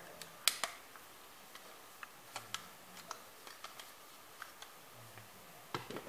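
Hard plastic clicks from a toy transforming plane being handled: one sharp snap about half a second in, then scattered light clicks and taps of plastic.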